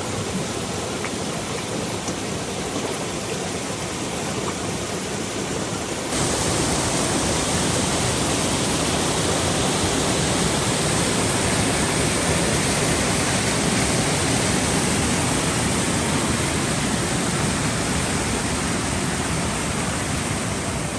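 Water pouring over a waterfall and rushing down the creek: a steady, even rush that gets louder and brighter about six seconds in.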